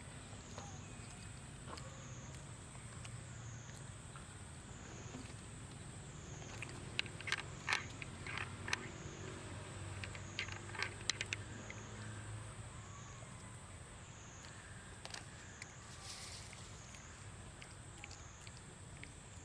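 Faint outdoor ambience: a steady low rumble under a thin high whine that wavers about once a second, with a cluster of sharp clicks and cracks around the middle.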